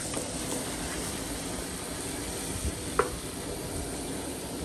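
Shrimp sizzling steadily as they fry in hot butter in a pan, stirred with a wooden spoon; one sharp clink about three seconds in.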